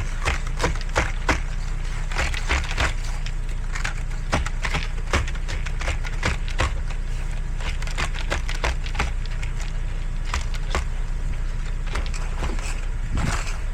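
Snow crunching and crackling in quick, irregular crunches over a steady low rumble.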